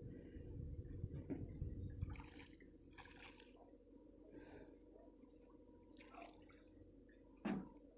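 Faint drips and splashes of water, a few short ones scattered through, over a steady low hum.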